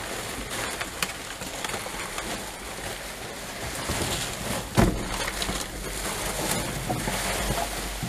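Plastic rubbish bag and packaging rustling and crinkling as gloved hands tear through it, with a sharper knock about five seconds in.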